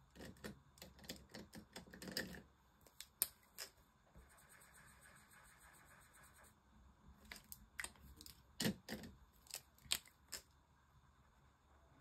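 Faint marker pen colouring on a paper sheet: a run of light taps and clicks of the pen tip on paper and desk, with a steady scratchy stretch of scribbling a few seconds in.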